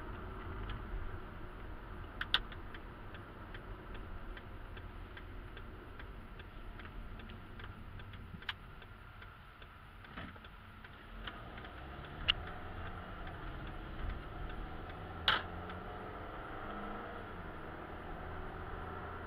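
Car cabin road and engine noise, a steady low rumble, with a turn signal ticking about three times a second through the first half that stops around the middle. A few sharper clicks or knocks stand out, the loudest about three-quarters of the way in.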